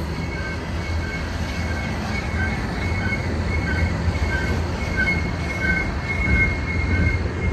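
Freight train of tank cars rolling past close by: a steady low rumble of the cars, with a thin, high-pitched wheel squeal that pulses on and off about every two-thirds of a second.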